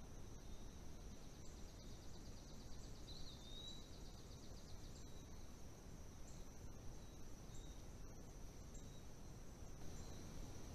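Faint steady chorus of night insects, crickets or katydids, a constant high-pitched trill over low hiss. A second, pulsing insect call is heard for a few seconds, and a single short high chirp about three seconds in.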